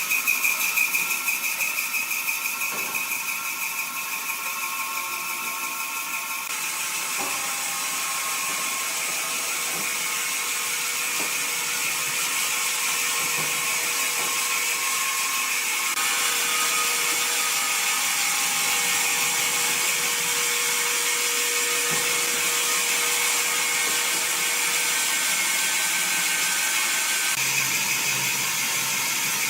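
Woodworking machinery running with a steady mechanical rattle, its tone changing abruptly about six, sixteen and twenty-seven seconds in.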